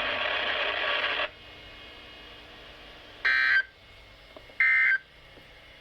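Emergency Alert System digital data bursts (SAME tones) from a NOAA Weather Radio broadcast: two short, loud, harsh bursts about a second and a half apart over low radio hiss. They are the end-of-message code that closes the weekly test message. A steady radio noise cuts off about a second in.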